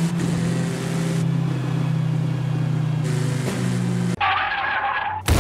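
Car engine running at a steady pitch, then about four seconds in a brief, higher and brighter sound takes over, and a sharp hit comes near the end.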